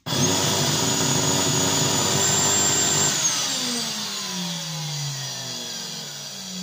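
Bucket-type vacuum cleaner motor starting suddenly and running with a loud high whine for about three seconds, then switched off and winding down with falling pitch. The abnormal noise points to a motor fault; the technician says worn carbon brushes or a faulty commutator can make such a clatter.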